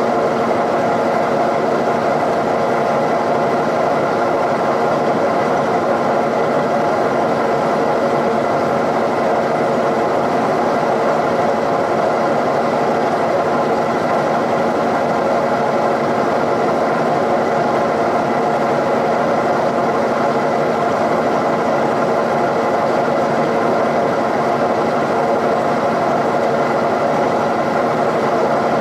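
Milling machine running steadily with a boring bar in its spindle, boring out a valve-port bowl in a cast-iron Cummins 5.9 cylinder head. The machine drone holds level throughout, with several steady tones.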